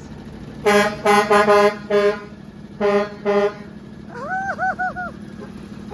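Garbage truck air horn honked in short blasts: a quick run of about five, then two more after a short pause.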